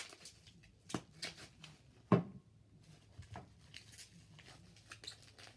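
Bubble wrap being handled around plastic slime containers: scattered crinkles and small clicks, with one louder sharp knock about two seconds in.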